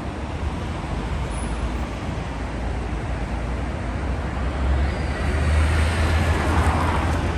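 City street traffic: a steady rumble of road noise, growing louder about five seconds in as a vehicle passes close, with a faint falling whine.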